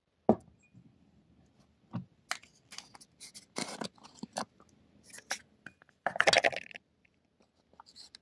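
Irregular small clicks, taps and scrapes, with a longer scratchy crackle about six seconds in.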